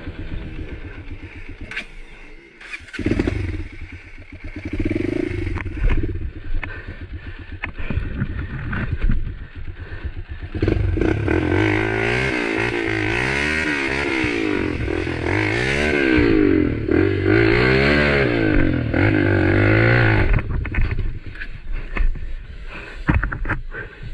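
Motorcycle engine running under way. About ten seconds in it gets much louder, its pitch rising and falling again and again with the throttle for about ten seconds, then it drops back to a lower, uneven running sound.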